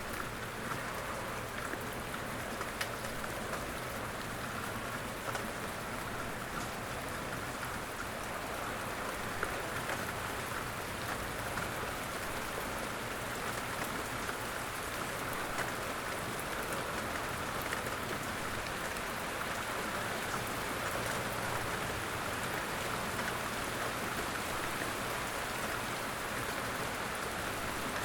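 Steady rain falling outdoors, with individual drops ticking sharply now and then over the even patter.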